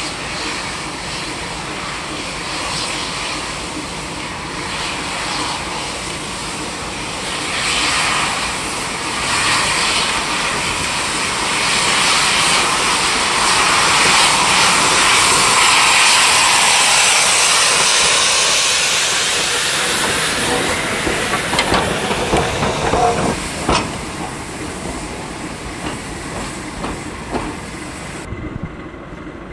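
Steam locomotive No. 850 Lord Nelson hissing loudly as steam vents from its open cylinder drain cocks. The hiss swells to its loudest about halfway, then eases, with a few metallic clanks later on.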